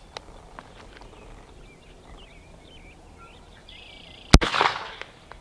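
A single .357 Magnum shot from a Korth NXS eight-shot revolver near the end, a sharp crack followed by a short echo.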